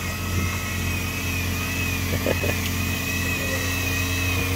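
Boat engine running steadily with a low hum, a thin wavering high-pitched whine over it.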